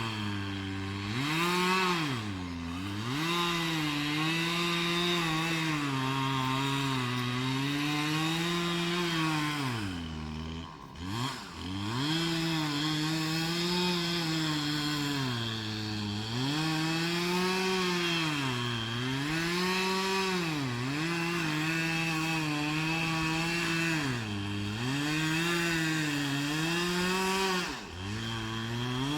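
Chainsaw cutting through a large cottonwood trunk, its engine speed dipping under load and picking back up again and again, with one deep bog about eleven seconds in.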